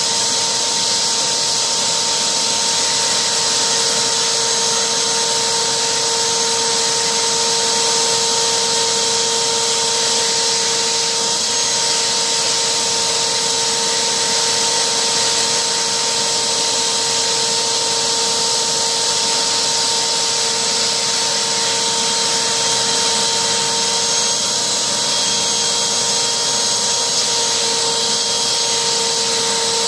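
Vacuum cleaner running steadily through a hose with a brush attachment: an even rush of air with a steady motor whine.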